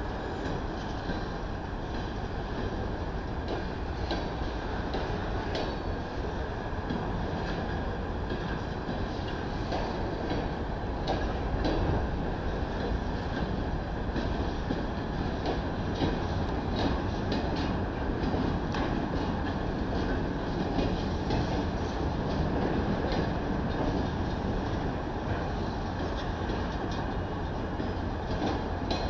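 Norfolk Southern freight train of covered hoppers and gondolas rolling past on the rails: a steady rumble of wheels with frequent short clicks and clanks, a little louder from about eleven seconds in.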